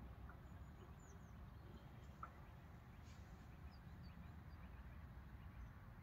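Faint, low wind rumble with a few faint, high bird chirps and one soft click about two seconds in.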